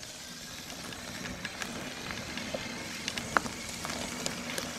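E-bike tyres crackling and crunching over gravel, with scattered sharp clicks over a steady hiss that slowly grows louder as the bike approaches. Under it runs a faint, steady low hum from the TQ-HPR50 mid-drive motor, picked up close to the motor: the motor is almost silent.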